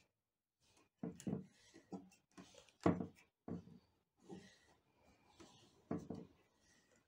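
Yarn rustling and scraping as it is pulled and wrapped around the nails of a wooden loom frame, with hands handling the frame: irregular soft rubs and knocks, the loudest about three seconds in.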